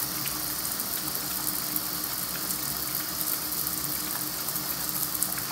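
Shower running at a trickle, water splashing steadily onto the shower floor, with a dog lapping the water from the floor.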